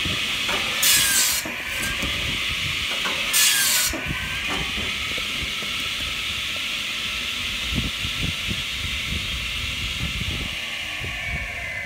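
Hartnett 500mm electric log saw bench: its disc blade cuts through a log twice in the first four seconds with a loud rasping hiss, then spins freely with a steady whine while a few low knocks sound. Near the end the whine starts to fall in pitch as the blade winds down.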